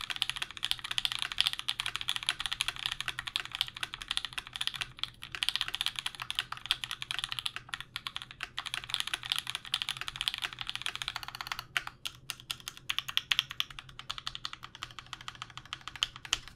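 Steady fast typing on a Canoe Gen2 mechanical keyboard with an aluminium plate, SOHO switches lubed with Krytox 205g0 and filmed, and GMK keycaps: a dense patter of keystrokes that thins to scattered single presses about two-thirds of the way through. The builder finds the board's sound a little hollow, which he puts down to the empty case bottom lacking foam.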